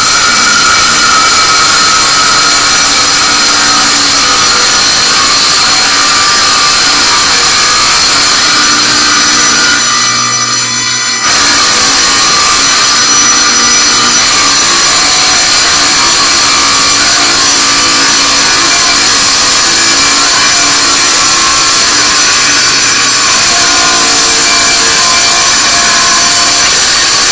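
Small tabletop wet tile saw starting abruptly and running loudly and steadily as its blade cuts through a marble threshold, with a brief dip in level about ten seconds in.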